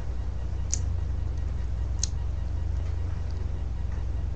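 Steady low hum, with two faint short ticks a little over a second apart.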